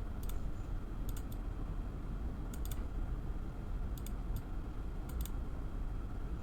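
Scattered sharp clicks of a computer mouse and keyboard, several coming in quick pairs, about one or two a second, over a faint low hum.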